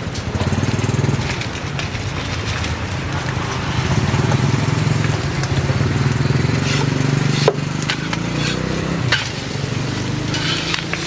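A small engine runs steadily with a low hum, over the sizzle of a hot griddle. A few sharp metal clicks, like a spatula on the griddle, come in the second half.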